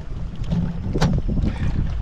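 Low rumble of wind buffeting the microphone, with a single sharp knock about a second in.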